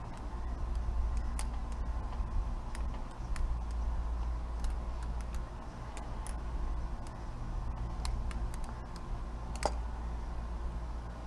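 Balisong (butterfly knife) being flipped, its handles clicking irregularly against the blade and each other, with one sharper click about nine and a half seconds in, over a low steady rumble.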